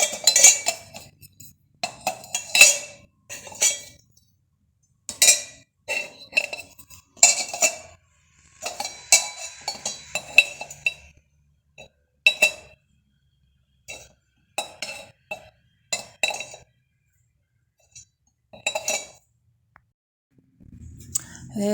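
Copper massage tools clinking and knocking against each other in irregular clusters of strikes, each with a short metallic ring.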